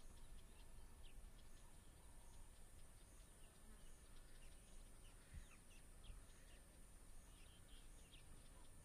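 Faint bush ambience: scattered short bird chirps over a steady high hiss and a low rumble.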